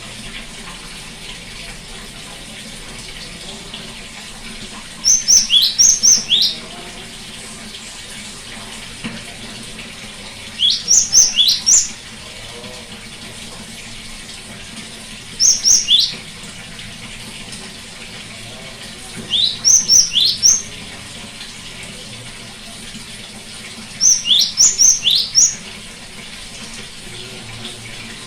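Great tit singing: five short bursts of quick, high, rapidly repeated notes, one about every four to five seconds, over a steady background hiss.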